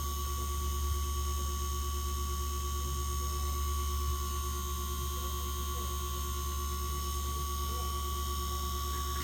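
Steady electrical hum with a constant low drone and a few fixed higher tones, unchanging throughout.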